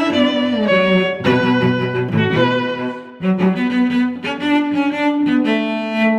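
Background music played on bowed strings, cello and violin, in sustained notes that change every second or so, with a short break about three seconds in.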